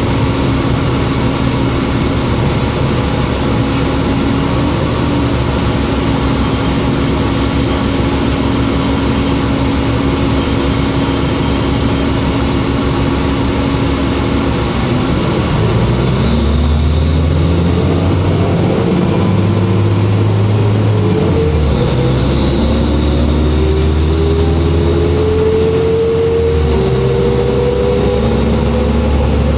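Cabin sound of a New Flyer D40LF city bus on the move: its Cummins ISL diesel and Voith automatic transmission run steadily under road noise. About halfway through, the engine note grows a little louder and deeper. In the last several seconds it climbs steadily in pitch.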